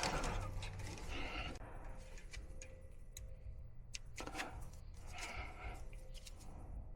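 Faint rustling and scattered light clicks of wires and connectors being handled, over a low steady hum.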